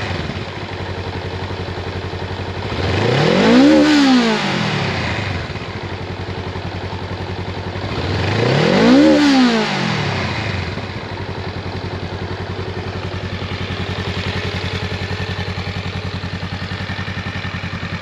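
Honda Rebel 500's 471 cc parallel-twin engine idling, blipped twice in short rise-and-fall revs about four and nine seconds in, then settling back to a steady idle.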